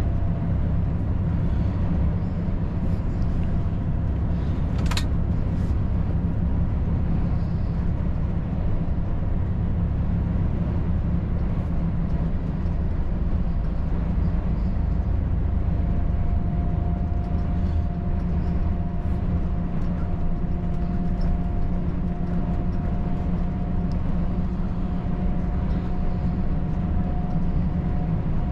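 Volvo FH 540 truck's 13-litre six-cylinder diesel and road noise: a steady low drone while cruising on the highway. There is a single sharp click about five seconds in, and a faint steady whine joins about halfway through.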